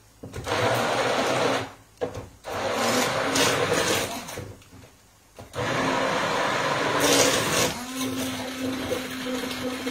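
Small electric blender run in three bursts, switched off between them, blending a sauce of tomatoes, basil and ricotta. In the last and longest burst the motor settles into a steady whine.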